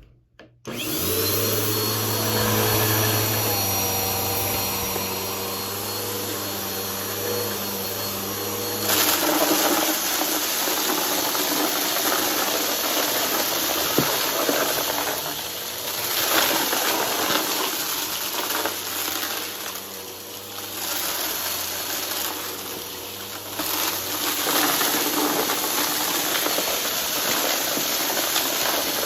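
Vacuum cleaner switched on, its motor whining up to speed, then running steadily. From about nine seconds in it is louder and rougher as the brushroll crunches through a pile of debris.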